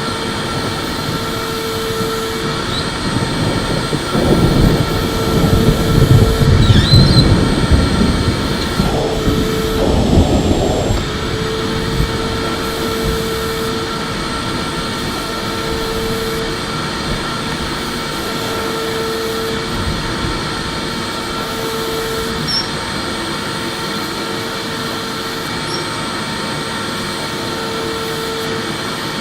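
Electric vacuum cleaner running continuously with a steady whine and a mid-pitched hum that comes and goes every couple of seconds. Between about four and eleven seconds in it gets louder and rougher, then settles back.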